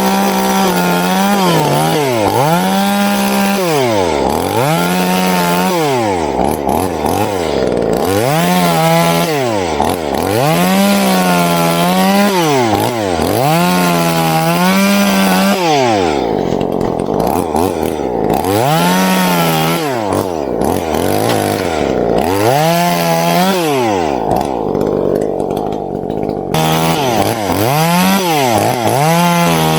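Chainsaw revving to full speed and dropping back to idle over and over, every second or two, as it makes short cuts.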